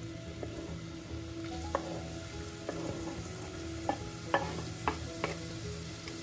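Diced onion sizzling as it is scraped off a wooden chopping board into hot oil in a pot. There are several sharp taps in the second half as the board knocks against the pot's rim.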